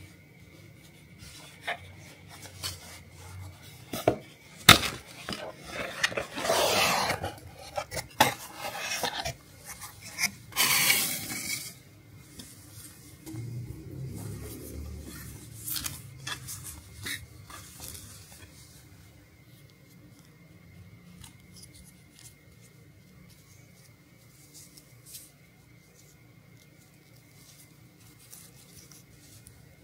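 Hard objects clinking and clattering as they are handled, with two short rushing noises about six and ten seconds in, quieter in the second half.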